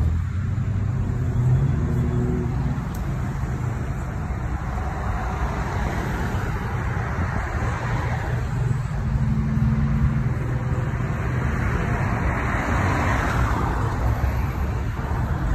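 Jeep driving at road speed, heard from inside the vehicle: a steady low engine hum under tyre and wind noise.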